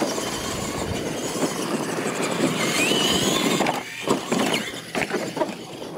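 Radio-controlled monster trucks racing on dirt, their motors and gears whining at full throttle with a rising whine near the middle. Then a few sharp knocks as the trucks bounce and land.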